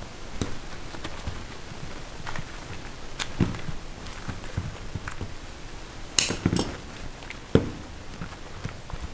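Irregular knocks and clicks of tools and hard candy on a work surface, with a short rattling clatter about six seconds in and a sharp knock about a second and a half after it.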